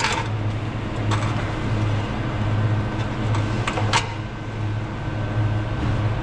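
A steady low mechanical hum, with a few sharp clicks and knocks about a second in and again between three and four seconds in.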